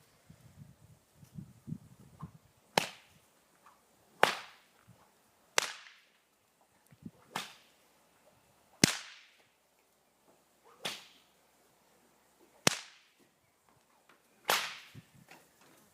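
A whip cracking eight times in a steady rhythm, one sharp crack every one and a half to two seconds, each with a short fading tail.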